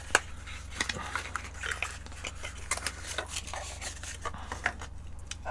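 Small clicks and rattles of hard parts being handled: new replacement speakers being popped out of their packaging and set down, with a sharp click just after the start, over a steady low hum.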